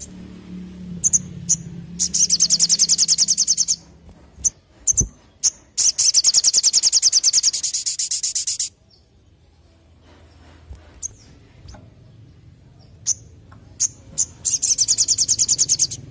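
Olive-backed sunbird (sogon) singing: three long, very fast trills of high notes, with single sharp chirps between them.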